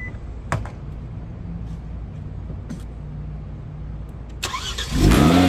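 A car engine idling with a low, steady rumble, with a few sharp clicks. Music comes in about four and a half seconds in and is louder.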